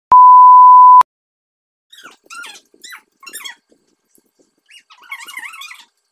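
Test-card beep: a loud, steady 1 kHz tone lasting about a second, laid over colour bars as an editing transition. It is followed by a few faint, high, wavering sounds.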